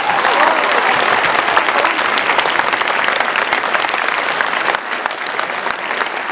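School assembly audience applauding, a dense patter of many hands clapping that starts right after the second-place winner's name is called and eases slightly near the end.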